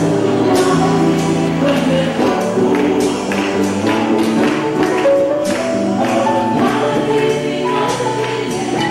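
Youth choir singing a Christian hymn, accompanied by acoustic guitars and violin, with a steady beat of percussion hits.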